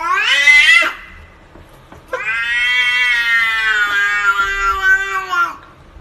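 Domestic cat meowing: a short meow rising in pitch that ends about a second in, then one long drawn-out meow of over three seconds that drops in pitch at its end.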